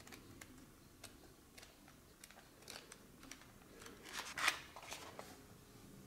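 Pages of a thick book being leafed through by hand: faint paper flicks and rustles, the loudest a little after four seconds in.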